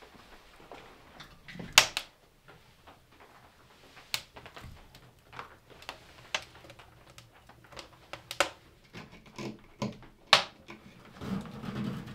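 Wood fire in a stove crackling, with sharp irregular pops, a few of them loud, and a rustle of handling near the end.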